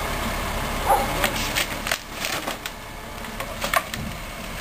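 Mobile crane's engine running, easing off about halfway through, with scattered light clicks and knocks from the slung hot tub being handled.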